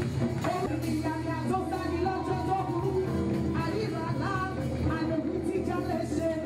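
Live gospel music: a woman sings into a microphone over band accompaniment, with a steady bass line underneath.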